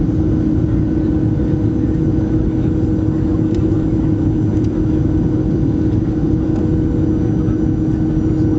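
Cabin noise of a Boeing 737-700 on final approach, heard from a seat beside the wing: the CFM56 turbofan engines running steadily, a loud, even rumble with a steady droning tone.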